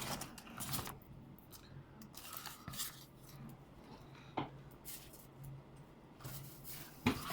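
Faint rustling and handling of packaging wrap being pulled open, with a few soft clicks and taps, over a low steady hum.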